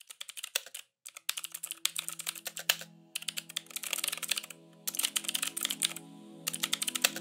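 Rapid computer-keyboard typing in runs of clicks with short pauses, over a low held musical chord that comes in about a second in: an intro jingle built on a typing sound.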